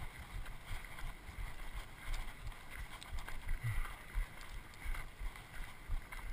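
Wind buffeting a body-worn camera's microphone in irregular low rumbles, with faint crunching footsteps on a loose gravel trail.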